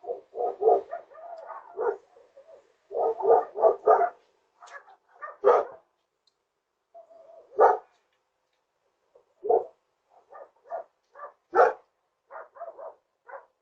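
A dog barking repeatedly, in short quick runs of barks with pauses of a second or so between them.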